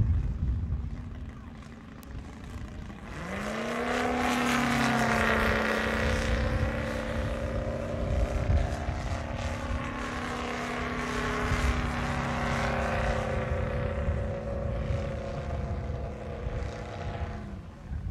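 Model biplane's seven-cylinder radial engine running in flight. About three seconds in, its note rises quickly, then holds a steady pitch until it stops near the end. Low wind rumble on the microphone lies underneath.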